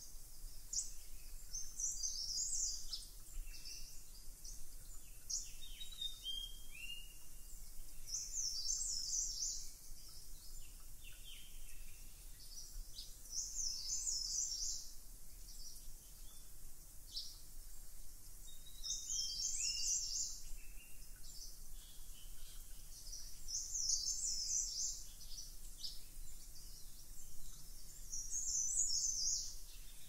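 Birdsong: a high, rapid run of notes repeated about every five seconds, with lower, shorter chirps in between, over faint background hiss.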